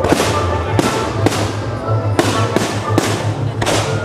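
Fireworks bursting in quick succession, about seven sharp bangs, with music playing underneath.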